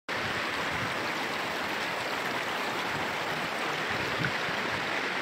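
Floodwater flowing steadily over fields and a road, an even rushing hiss.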